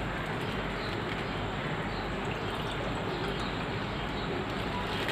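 Steady, even background noise with no distinct events: room tone.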